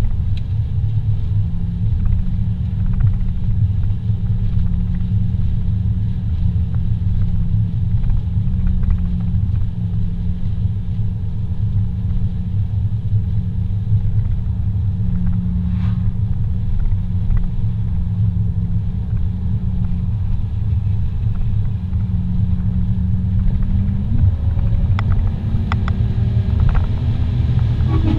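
Car engine and road noise heard inside the cabin, a steady low drone. Near the end the engine note climbs as the car accelerates to overtake.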